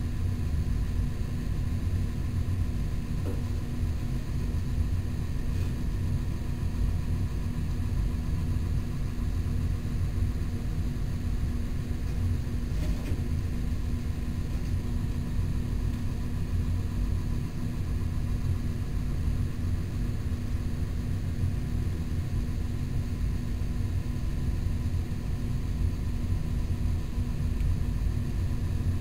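Steady low machine hum and rumble with a few constant tones above it, unchanging, with two faint ticks, a few seconds in and near the middle.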